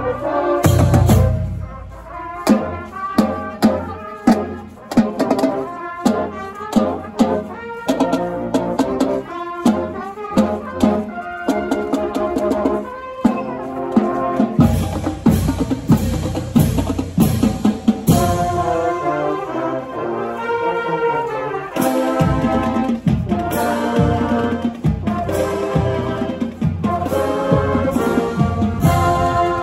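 Marching band playing on the march: sousaphones, saxophones, clarinets and other brass over drums. Sharp, repeated drum and ensemble hits fill the first half, and the full band comes in with fuller, sustained chords about fifteen seconds in.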